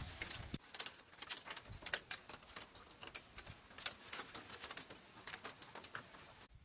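Split bamboo slats clicking and tapping against each other and the pole frame as they are laid and tied down by hand: many light, irregular clicks.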